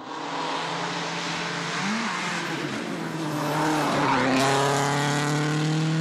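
A turbocharged four-cylinder World Rally Car at full throttle, approaching on a wet tarmac stage and passing close by. The engine note drops in pitch as it goes past, about four seconds in, and then holds steady.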